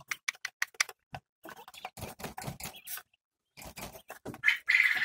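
Quail pecking feed from a metal feeder trough: a rapid, uneven run of small sharp clicks, with one short, louder call near the end.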